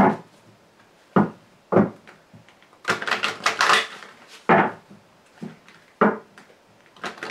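A deck of Grand Jeu Lenormand cards shuffled by hand: a series of short, separate card slaps and rustles, with a quicker flurry of them about three seconds in.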